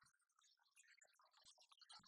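Near silence: only faint, scattered ticks and clicks.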